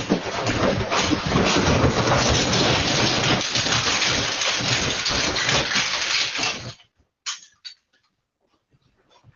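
Earthquake shaking: a loud, dense rattling and rumbling of a building and its contents that cuts off abruptly about seven seconds in, followed by a few faint clicks.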